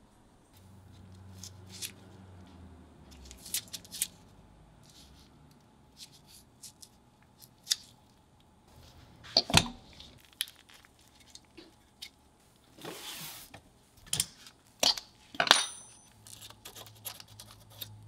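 Rusty Swiss Army knife being handled on a wooden bench: scattered metal clicks, clinks and a few sharp knocks as its corroded blades and tools move, with a short rasp about two-thirds of the way through.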